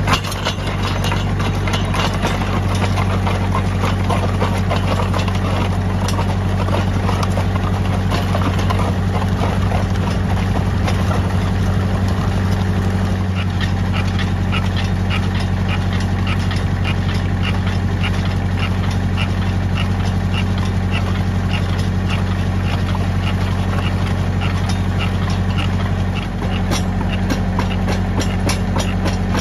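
Tractor engine running steadily as it drives a PTO post-hole auger boring into clay soil. About halfway through, a regular ticking joins in over the engine.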